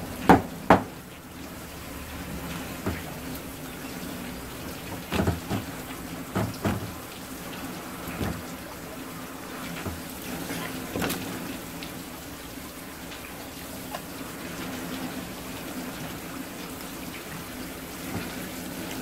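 Water from a tap spray running steadily onto a plastic cutting board while a knife fillets a sea bass, with several knocks of the knife and fish against the board, the sharpest two right at the start.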